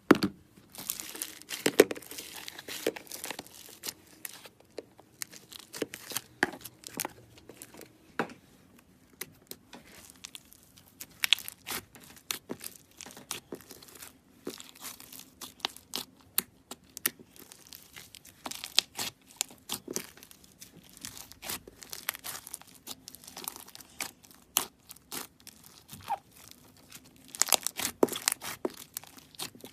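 Slime being squeezed, stretched and pressed by hand, giving dense, irregular crackles, clicks and pops, with a burst of louder pops near the end.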